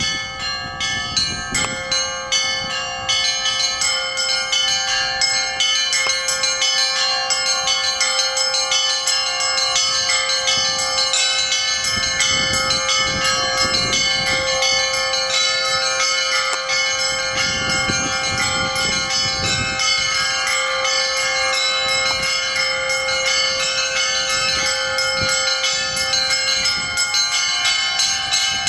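Russian Orthodox church bells being rung in a continuous peal: many bells struck rapidly over one another, a steady deep tone held beneath. The ringing builds up over the first few seconds, then goes on evenly.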